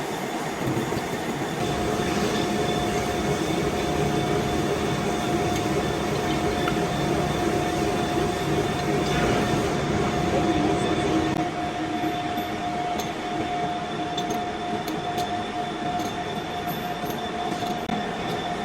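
Metal lathe running while turning a bronze bush, with a steady whine. The sound drops slightly about eleven seconds in.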